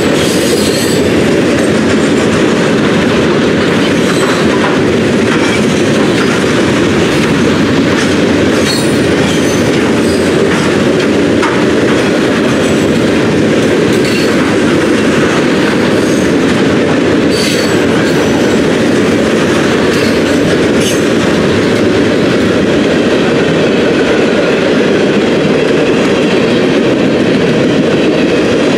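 Loaded freight train of steel-coil cars rolling past close by. The steel wheels make a steady, loud rumble on the rails, with clicks over the rail joints and a few short high-pitched wheel squeals.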